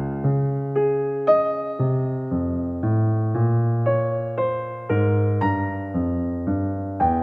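Background music: a piano playing a slow tune. A new note or chord is struck about twice a second, and each one rings and fades.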